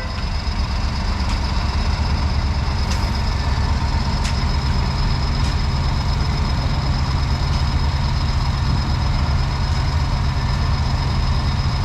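Heavy diesel engine of road-works machinery running steadily at a low, even speed, with a faint, steady high-pitched whine above it and a few light clicks.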